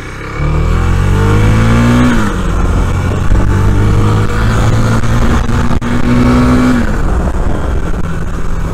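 Motorcycle engine accelerating hard: its pitch climbs quickly, drops at a gear change about two seconds in, then climbs more slowly until another shift near the end. Wind rushes past the open helmet visor.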